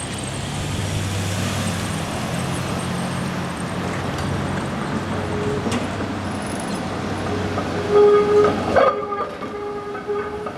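Heritage streetcar running past on the rails: a steady rumble with a low motor hum, joined from about five seconds in by a sustained high pitched squeal that is loudest around eight seconds in.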